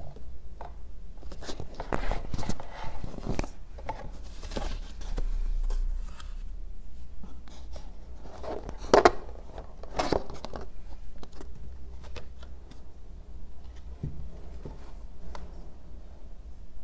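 Hands handling cardboard and foam packaging: irregular rustles, scrapes and light taps as the foam sheet comes off and the epilator is lifted out of its cardboard tray. There is a longer rustle about five seconds in and one sharp knock about nine seconds in.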